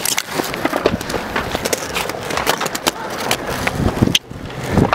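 Skateboard wheels rolling on concrete, with many clacks and knocks of the board and a heavy thud about four seconds in and again near the end.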